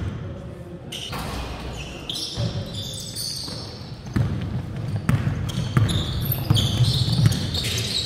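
Basketball game in a large gym: a ball being dribbled on the hardwood court and short sneaker squeaks as players run. Voices and crowd noise grow louder about halfway through.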